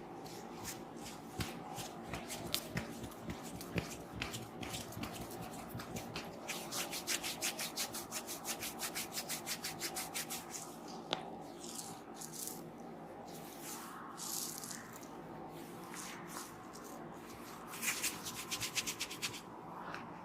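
Hands rubbing over a head's hair and scalp in a massage: soft rubbing, then a run of quick rhythmic strokes about five a second for several seconds, and a short flurry of rubbing near the end.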